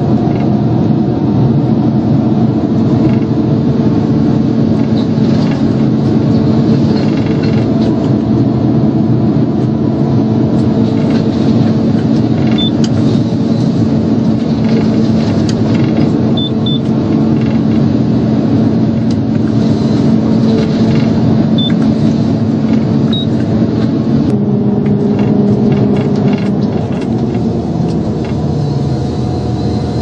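Forestry harvester's engine and hydraulics running steadily under load, heard inside the operator's cab, with scattered clicks and knocks from the working harvester head. The drone changes pitch about three-quarters of the way through and gets a little quieter near the end.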